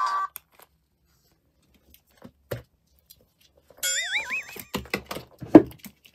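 Soft clicks and knocks from handling a rubber-covered electronic sound toy whose switch is set to its silent middle position, so no tune plays. About four seconds in there is a short, wavering whinny-like call, followed by a run of knocks and thumps, the loudest a little before the end.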